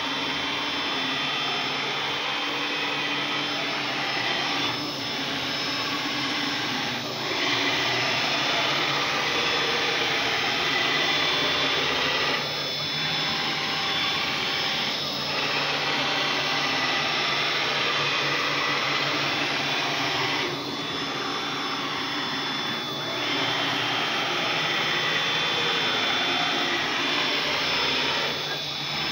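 Mini CNC router with a 500 W spindle running at high speed: a steady machine whine from the spindle and the stepper-driven axes, with several brief dips in the sound every few seconds as the motion changes.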